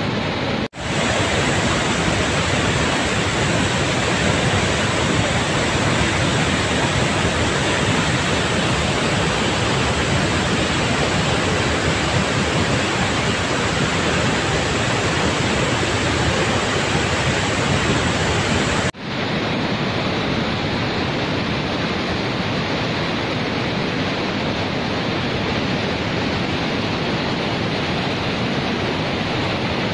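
Rushing floodwater: a loud, steady rush of water with no distinct tones. It breaks off abruptly twice, about a second in and again about two-thirds of the way through, each time going on as a similar rush.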